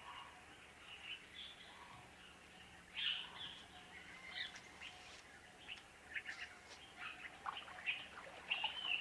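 Wild birds chirping and calling, many short high calls scattered through, growing busier near the end.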